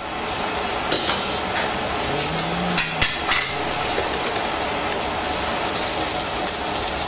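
Steady hiss with scattered crackles and ticks from olive oil heating in a copper pan over a gas flame. Artichoke leaves are tipped into the hot oil near the end.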